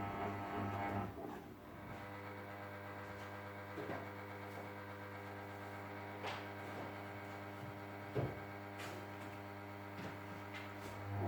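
Ariston Margherita washing machine in its main wash: the drum motor's drone stops about a second in, leaving a steady electrical hum with a few faint clicks and knocks as the drum rests, then the motor starts up again near the end for the next turn.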